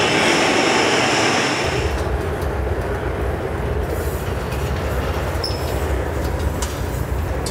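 Steady roar of a gas-fired glory hole, the glassblowing reheating furnace, running with its door open. A bright hiss dominates for the first two seconds, then gives way to a low rumble.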